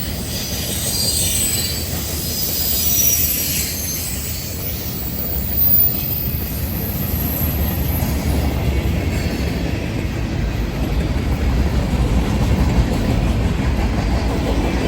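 Freight train cars rolling past with a steady low rumble and clatter of wheels on rail. Wheel flanges squeal on the curve in the first few seconds, and the rumble grows stronger in the second half.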